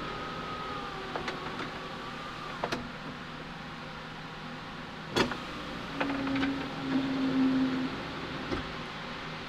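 Electric power window motor of a 1963 Chevy C-10 whining as it drives the glass, stopping with a click about two and a half seconds in. After a sharp click, two short runs of a lower motor hum follow.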